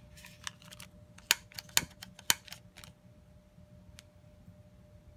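Several sharp clicks and clinks in quick succession, the three loudest about half a second apart, over the steady low hum of the coal forge's air blower running at a low setting.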